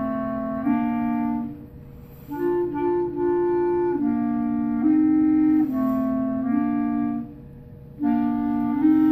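An instrumental melody in two parts, with two held notes sounding together in harmony and changing step by step. The playing pauses briefly about two seconds in and again about seven seconds in.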